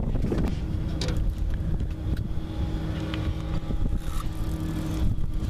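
Boat motor running steadily with an even, low hum.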